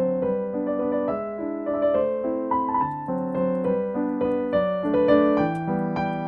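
Background piano music, a gentle melody of sustained notes over chords.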